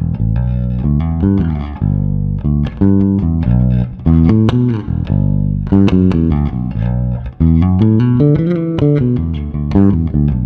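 Passive electric bass played through a Fuhrmann bass preamp pedal: a continuous run of plucked notes and slides, with a heavy low end.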